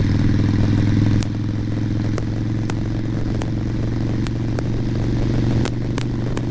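Harley-Davidson Sportster Nightster's 1200 cc V-twin running steadily on the road. The engine note eases slightly about a second in. Sharp clicks and pops from the helmet microphone are scattered throughout.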